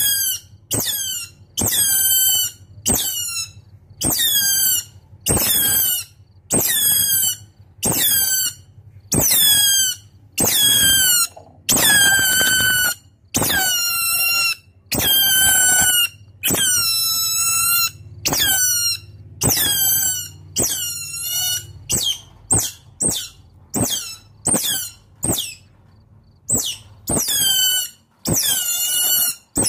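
Otter giving a long series of high-pitched squeaking calls that drop in pitch, about one a second, coming quicker near the middle: calls to summon its companions.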